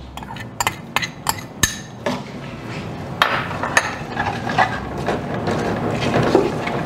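A few sharp metallic clinks, then a metal spoon scraping and stirring annatto seeds around in warm oil in an aluminium pan. The scraping grows louder and more continuous from about two seconds in.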